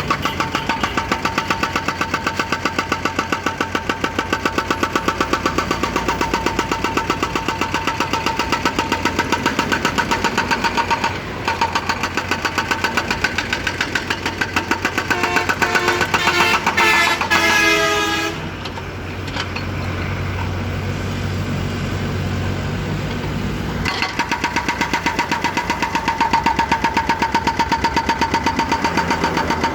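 Excavator-mounted hydraulic breaker hammering in rapid, regular blows over the excavator's diesel engine. A pitched tone that shifts in pitch sounds briefly a little past the middle. The blows then stop for several seconds, leaving the engine running, and start again near the end.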